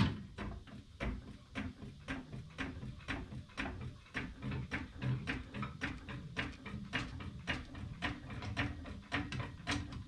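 Hydraulic floor jack being pumped to lift the front of a car: a rapid, even run of metallic clicks and clunks, about four a second, after a loud knock at the start.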